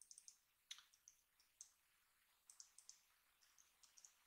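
Faint computer keyboard and mouse clicks, coming a few at a time in quick clusters as size values are typed in.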